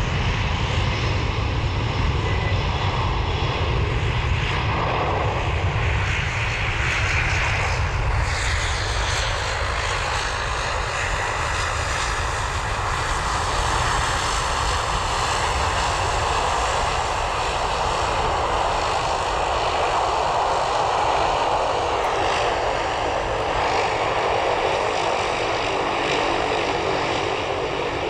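Airbus A330-200's twin Pratt & Whitney PW4170 turbofans running at high thrust for takeoff: a loud, continuous jet noise with high whining tones that drift in pitch. The sound changes abruptly about eight seconds in and again about twenty-two seconds in.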